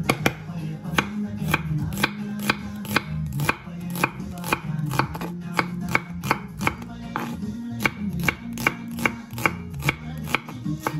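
Kitchen knife chopping food on a cutting board in quick, regular strokes, about three a second, over soft background music.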